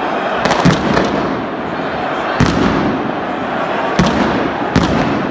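Pyrotechnic firecrackers banging in a stadium crowd: about five sharp bangs, two close together near the start, over the steady noise of the crowd.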